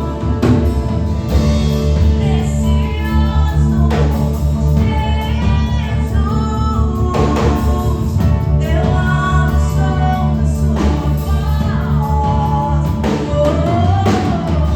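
Worship song: a voice singing a flowing melody over a band with steady drum beats.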